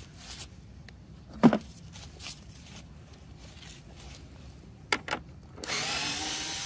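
A single sharp thump about a second and a half in and a pair of clicks around five seconds, then a cordless screwdriver's motor running steadily near the end, lasting about two seconds.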